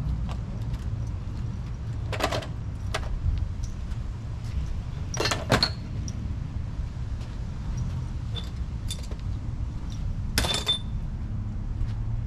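Metal hand tools clinking and clattering as they are picked up and set down on pavement: several short clanks, some with a brief metallic ring, over a steady low rumble.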